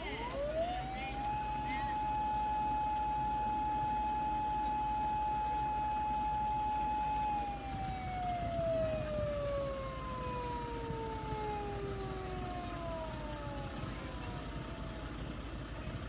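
Japanese police-car siren sounding one long wail: the pitch rises in about a second, holds steady for about six seconds, then slides slowly down over about five seconds.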